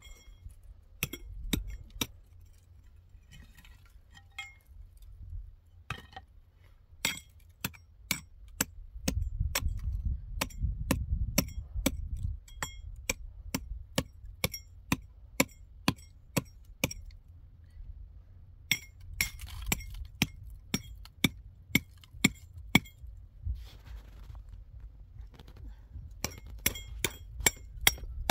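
A hand tool striking concrete blocks again and again, giving sharp ringing clinks, about two a second in long runs with pauses and a quicker flurry near the end, over a low rumble.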